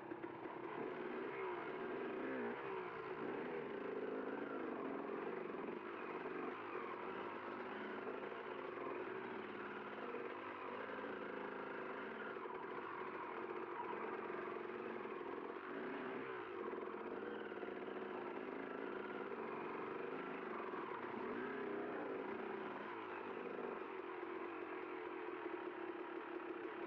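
Enduro dirt bike engine running continuously, its pitch wavering up and down a little.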